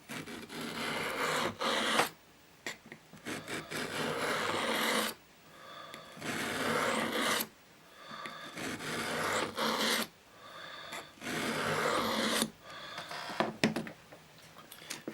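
Small penknife blade being drawn across a small wet whetstone, steel grinding through a water slurry. About six long sharpening strokes, each a second or two, with short pauses between them.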